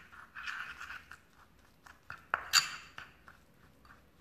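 A spoon stirring and scraping a thick, damp powder paste in a ceramic bowl, with scattered light clicks and two sharper clinks of the spoon on the bowl about two and a half seconds in.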